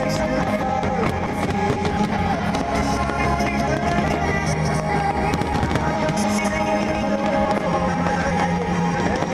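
Music playing loudly throughout, with fireworks bursting and crackling over it in many short sharp bangs.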